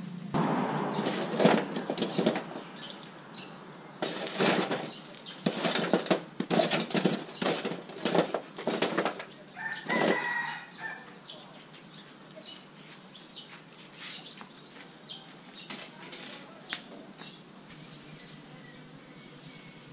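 Irregular bursts of rustling, flapping noise through the first ten seconds, followed by quieter scattered rustles and light knocks.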